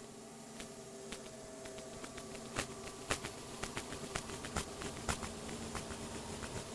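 Minimal drone noise music: a steady buzzing hum of a few held tones over hiss, broken by irregular sharp crackling clicks that come thickest in the middle stretch.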